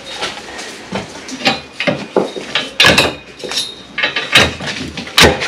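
Steel acrow prop being loosened and moved by hand: irregular metallic clanks and knocks, about six or seven, with rattling between them.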